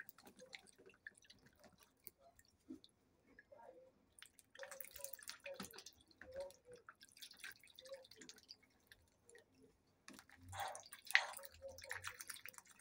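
Muscovy duck dabbling its bill in a tub of water and chopped kale as it eats: small wet splashes and drips in irregular bursts, loudest near the end.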